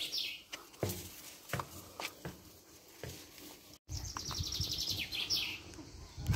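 Songbird singing a quick trill of rapid notes that fall in pitch, about a second and a half long: once at the start and again a little after halfway. A few soft taps sound in between.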